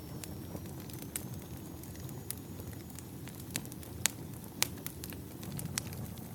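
Wood campfire burning, a steady low rush of flame with irregular sharp crackles and pops from the firewood, the two loudest pops a little past the middle.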